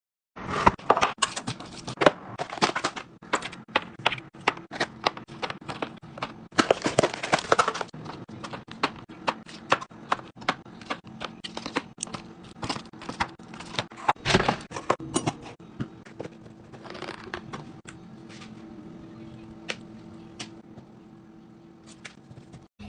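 Restock handling sounds: rapid, irregular clicks, taps and rustles of food pouches and plastic packaging being handled and set into a clear plastic bin. The clicks thin out after about sixteen seconds, leaving a quieter, steadier sound.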